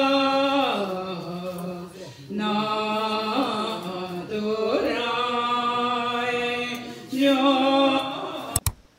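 A group of voices singing a Tibetan Buddhist chant in unison, holding long drawn-out notes in phrases of a few seconds and sliding between pitches. The singing cuts off suddenly shortly before the end.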